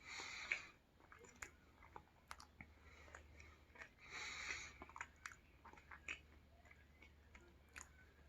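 A person chewing sushi, with many small wet mouth clicks. Two short breathy hisses stand out, one at the start and one about four seconds in.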